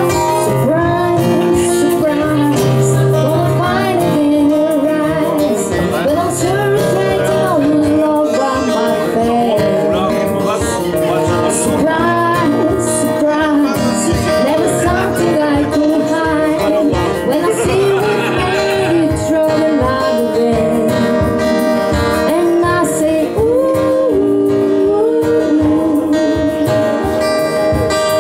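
Live acoustic band playing: strummed acoustic guitar, violin and a woman singing, with a harmonica.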